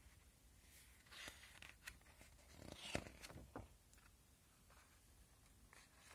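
Faint paper rustling and a few soft clicks as a picture book's page is handled and turned, over about three seconds in the first half.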